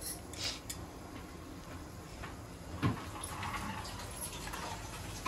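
Faint kitchen handling sounds: a few light knocks and clicks, the clearest about three seconds in.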